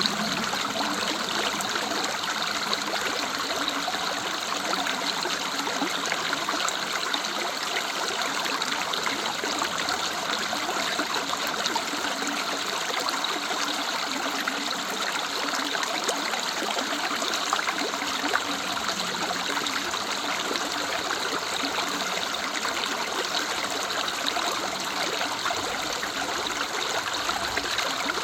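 Woodland river running steadily: an even, unbroken rush of flowing water.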